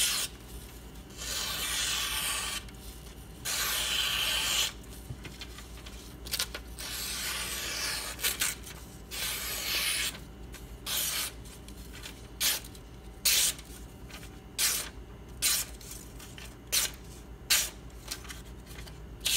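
Knife blade drawn across a strop charged with white compound: about four long, even strokes, then quicker short strokes roughly one a second, polishing and blending the scratches on the convex bevel.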